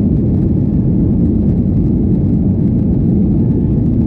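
Steady low rumble of a Boeing 737 airliner's jet engines and airflow, even and unchanging.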